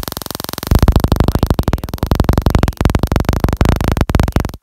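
Homemade spark-gap Tesla coil firing: a harsh, rapid buzzing crackle of sparks that jumps much louder about a second in.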